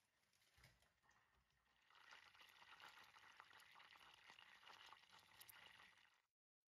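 Butter melting in a steel saucepan, sizzling faintly with fine crackles. The sizzle comes in about two seconds in and cuts off suddenly near the end.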